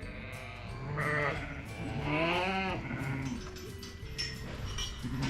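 Lambs bleating: a short quavering call about a second in and a longer wavering one a little after two seconds, from lambs penned apart from their ewes.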